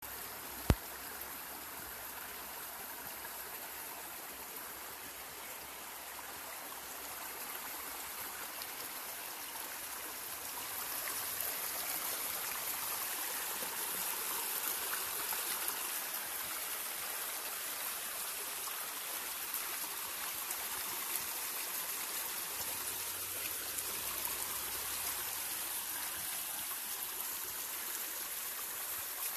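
Shallow rocky creek running and trickling steadily, a little louder from about ten seconds in. One sharp click just under a second in.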